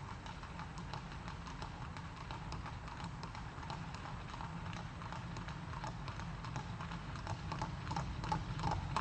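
Cartoon sound effect of a horse's hooves clip-clopping at a steady pace as it pulls a carriage, getting louder near the end, over a faint low hum.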